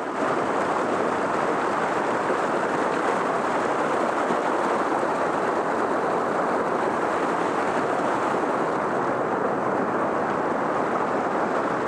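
Havasu Creek rushing over rocks and small rapids close by, a steady, even rush of water.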